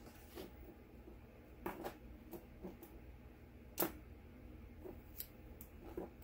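Scattered light clicks and taps of sticker sheets and small tools being handled on a desk, with one sharper tap about four seconds in, over a faint low hum.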